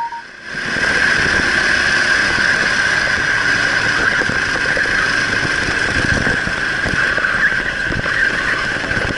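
Kart engine running at racing speed, recorded by an onboard camera: a steady high-pitched engine whine that cuts in about half a second in.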